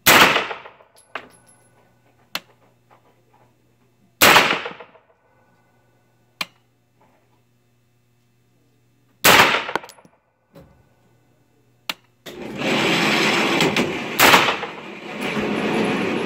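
Slow single shots from a PSA 9mm AR pistol on an indoor range: four loud reports about five seconds apart, each with a short echoing tail, and fainter sharp cracks in between. From about twelve seconds in, a steady loud rushing noise runs under the last shot.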